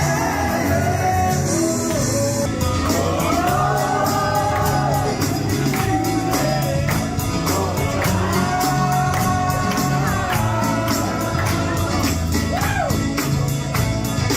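Background music: a pop song with a singing voice over a steady beat and bass.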